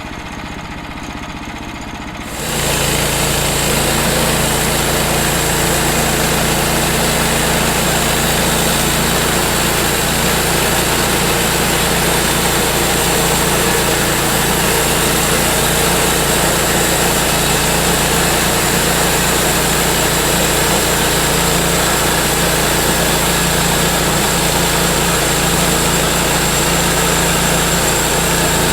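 Portable bandsaw sawmill's gas engine running at a lower speed, then throttled up about two seconds in and running steadily at full speed, as for sawing the hickory log.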